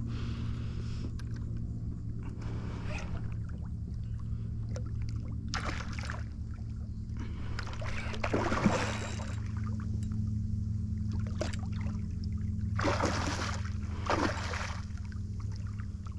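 Water splashing against a kayak in short bursts, about seven times, over a steady low hum.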